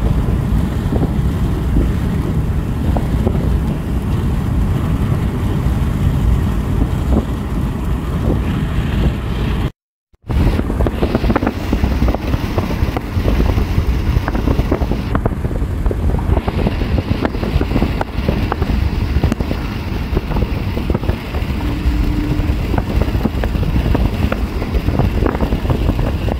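Steady road and wind noise of a moving car, with wind buffeting the microphone. The sound cuts out for a moment about ten seconds in, then carries on much the same.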